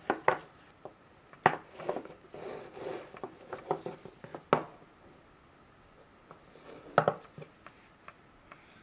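A leather belt being handled and uncoiled on a wooden table: a few sharp knocks and taps, with leather rubbing and scuffing between them in the middle.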